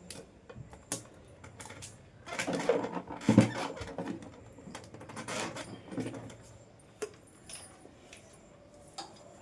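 Light clicks, knocks and clatter of metal ceiling-fan parts being handled and fitted together during reassembly, loudest about three seconds in.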